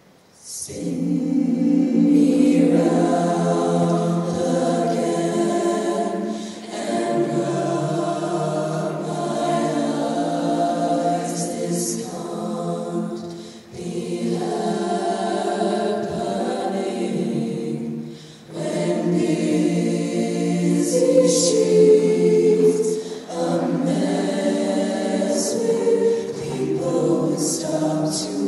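All-female a cappella group singing into microphones: many layered female voices in harmony, with no instruments. The singing starts about half a second in and drops out briefly a few times.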